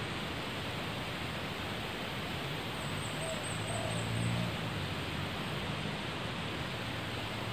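Daytime forest ambience in a mahogany stand: a steady hiss, with a short run of rapid, high chirps about three seconds in and a faint low hum in the middle.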